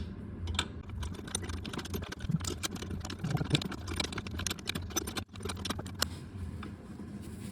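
Hand ratchet wrench clicking rapidly as it is worked, a fast stream of small metallic clicks that cuts off abruptly about five seconds in.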